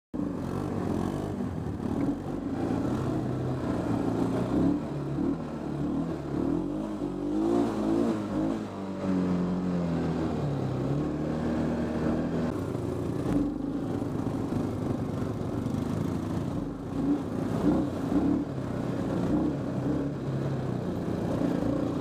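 Honda TRX350 FourTrax ATV's single-cylinder four-stroke engine running as the quad rides a rough, muddy trail, its pitch rising and falling with the throttle, most noticeably around eight to eleven seconds in.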